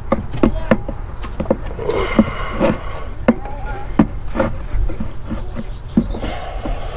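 Replacement alternator's metal housing knocking and scraping against the engine brackets as it is worked by hand into its mount: irregular clunks and clicks, about a dozen, some with a short metallic ring.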